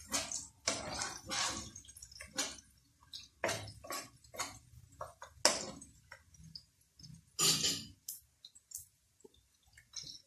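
Metal slotted spatula scraping and tapping against a non-stick wok as chopped onion, lemongrass, garlic and ginger are stir-fried in oil, in irregular strokes, the loudest a little past halfway. The strokes stop about nine seconds in.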